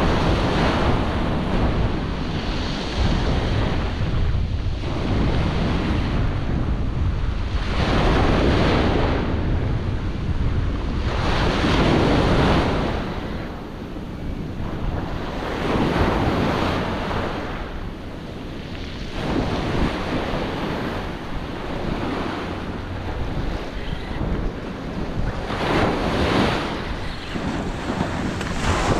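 Ocean surf breaking and washing up a beach, swelling with each wave every few seconds, with a stiff onshore wind buffeting the microphone.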